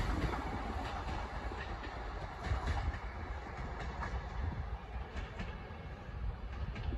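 RA-2 diesel railcar train running away along the track, its engines and wheels on the rails fading as it recedes, with a few clicks of wheels over rail joints.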